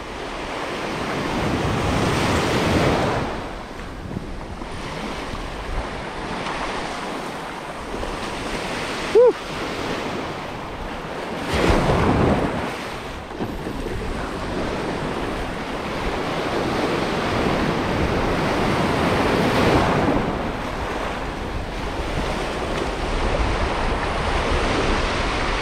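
Surf washing up and breaking at the shoreline, swelling with a wave about every eight seconds, with wind buffeting the microphone. A single short pitched squeak about nine seconds in.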